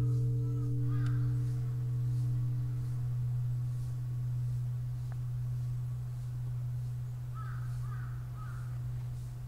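Large Japanese Buddhist temple bell (bonshō) humming as it dies away after a strike: a low steady hum that slowly swells and fades, its higher tones fading out within the first few seconds. A bird calls three times near the end.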